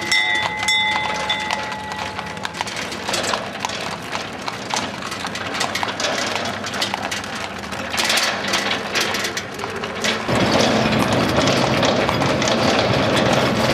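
Horse hooves clip-clopping on asphalt as horse-drawn carriages with wooden-spoked wheels roll past, with scattered knocks and rattles. About ten seconds in it changes to a louder, steady rolling rumble and rattle heard from aboard a moving carriage.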